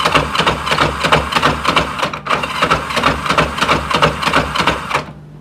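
Electric starter cranking a Kawasaki GPZ500 parallel-twin engine that is completely blown up, with a fast, rhythmic mechanical clatter that cuts off about five seconds in.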